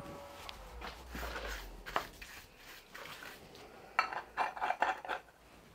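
Aluminium lid being handled on a steel milling-machine table: a few scattered clinks, then a short run of metallic clatter and scraping about four seconds in.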